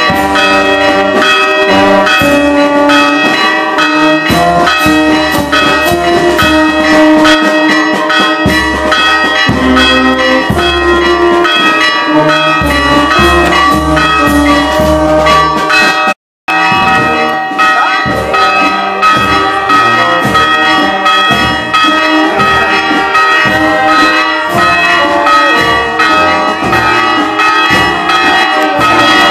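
Church bells ringing continuously, mixed with a brass band playing, its low bass notes changing about once a second. The sound cuts out briefly about halfway through.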